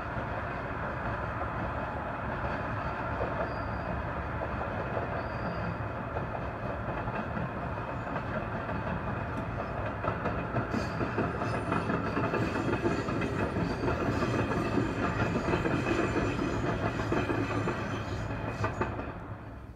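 Trains running past on the rails: a container freight train's steady wheel rumble, growing louder about halfway through as an electric commuter train passes nearer, with a busy clatter of wheels over the rails. The noise falls away abruptly just before the end.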